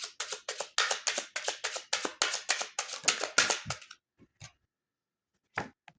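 Tarot cards being shuffled by hand, a quick even run of card slaps at about six a second that stops about four seconds in, followed by a few single soft card taps.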